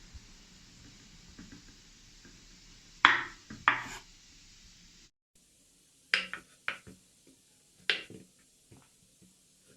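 Kitchen utensils knocking and clattering against a hard surface: two loud knocks a few seconds in, then several quick sharp knocks and clinks a little later, typical of a knife and dishes on a cutting board.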